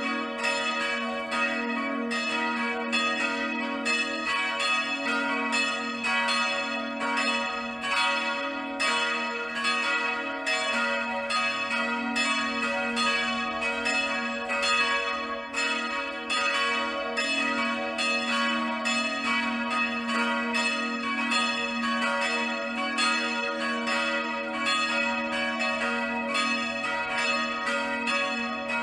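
Several church bells pealing together, struck over and over about two times a second, their tones ringing on and overlapping between strokes.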